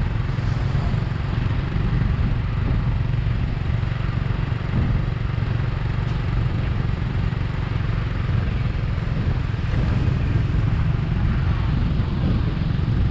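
Steady rumble of riding on a motorcycle: the small engine running under a heavy low wind rumble on the microphone.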